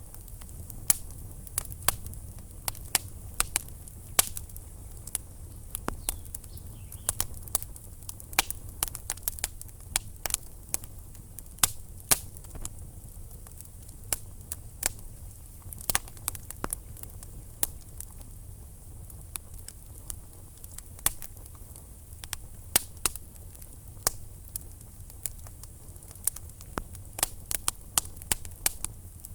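Wood logs burning in a fireplace, crackling with irregular sharp pops and snaps, several a second, over a low steady rumble of the fire.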